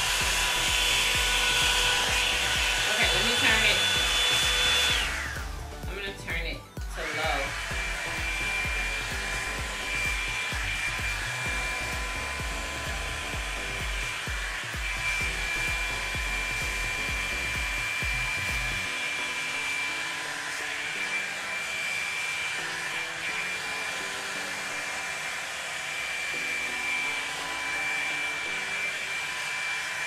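Revlon One Step hair dryer brush running on high, a steady blowing hiss with a motor whine. About six seconds in the sound dips briefly, and the whine comes back lower in pitch.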